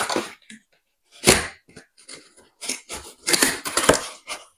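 Cardboard box flaps and packing inserts being handled, rustling and scraping in several short bursts, busiest in the second half.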